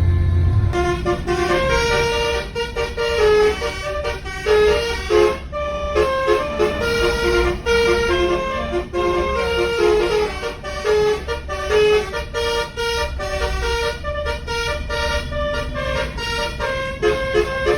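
A bus's 'telolet basuri' musical air horn playing a fast tune in short, stepped notes, starting about a second in, over a low rumble.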